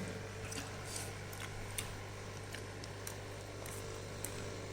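Faint, scattered wet clicks of a person chewing a mouthful of rice with fried eggplant, over a steady low hum.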